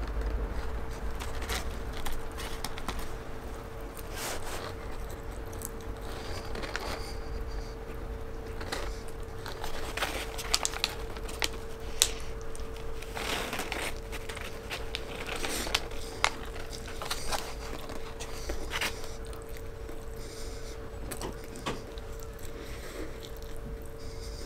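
Close-up mouth sounds of a person chewing and biting into a large hamburger: wet smacks and crunches, with the paper wrapper crinkling as it is handled. A steady hum runs underneath.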